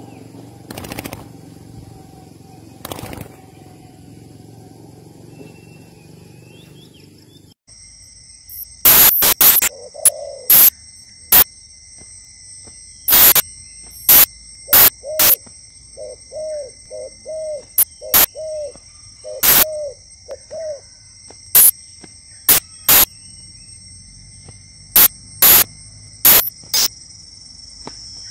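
Spotted dove cooing in short phrases of a few low notes, with loud sharp snaps at irregular intervals and a steady high-pitched drone behind. The first several seconds hold only low background noise and two clicks.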